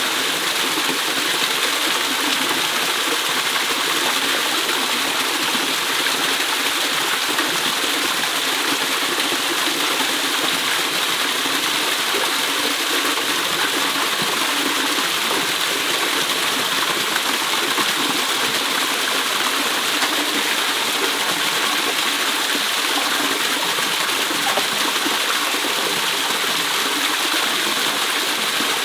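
Small waterfall pouring into a shallow rocky pool, a steady rushing splash of water.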